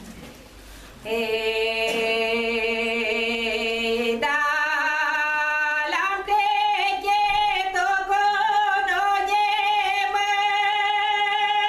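A woman singing a traditional Maramureș folk song alone and unaccompanied. She comes in about a second in with a long held note, then leaps up to a higher, wavering held note about six seconds in.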